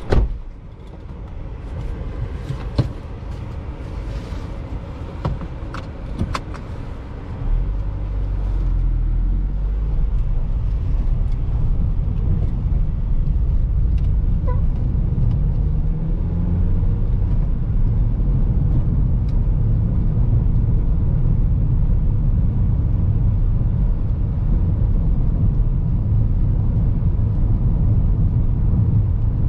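Inside the cabin of a 2012 Mazda 5 with its 2.0-litre petrol engine: a single loud thud at the very start, then a few small clicks and knocks. About seven seconds in, the car pulls away and the cabin fills with a steady low rumble of engine and tyres on a rough, patched road surface.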